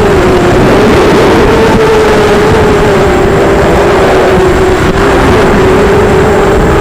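Emax MT2204 brushless motors spinning HQ 5045 bullnose props on a 250-size racing quadcopter, a loud, steady buzz that wavers only slightly in pitch, heard through the onboard camera with heavy wind rumble on its microphone.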